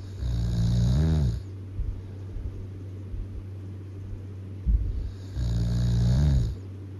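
Loud snoring: two long snores about five seconds apart, each bending in pitch at its end, over a steady low hum.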